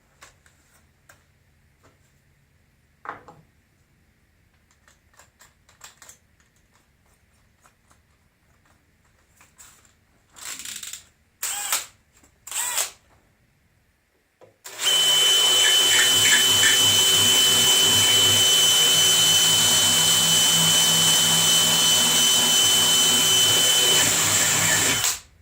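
Electric drill spinning an abrasive attachment inside a worn, oblong steel pin hole to smooth it out. After a few short blips of the trigger about ten seconds in, it runs steadily for about ten seconds with a constant whine, then stops abruptly.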